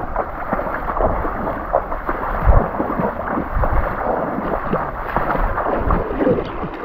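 Feet wading through shallow river water, kicking up irregular splashes and sloshes.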